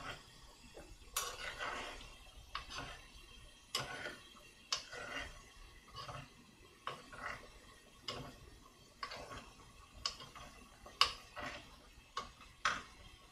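A spoon stirring and scraping around the inside of an earthenware ttukbaegi pot, with irregular clinks and scrapes about once a second. The beaten egg in the pot is just beginning to set.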